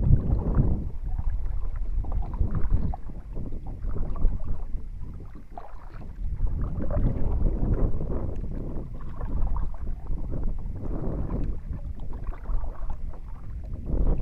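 Double-bladed kayak paddle dipping and pulling through the water in repeated strokes, with wind buffeting the microphone as a low rumble.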